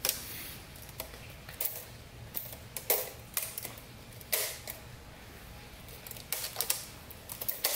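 Scattered light clicks and metallic taps as a steel head gasket is pressed down and seated over the locating dowels on an LS engine block, with a quick run of taps near the end.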